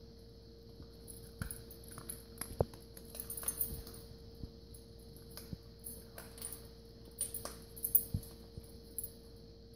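Miniature pinschers eating dry kibble on a tile floor, with irregular crunching and sharp clicks and clinks as their muzzles and the kibble knock against stainless steel bowls. The clicks come most thickly a little before the end.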